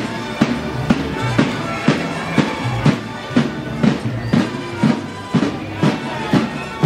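Marching music: a drum beat about twice a second under held wind-instrument notes.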